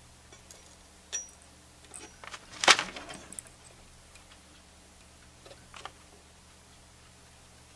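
Light clicks and rattles of a capacitor's wire lead being bent and handled among the parts of a tube radio chassis, with one louder cluster of clicks lasting about half a second near the middle.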